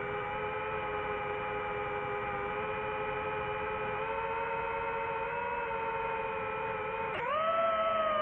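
DJI FPV drone's motors and propellers whining steadily. About seven seconds in, the pitch dips for a moment and then jumps sharply higher and louder as the throttle is pushed up.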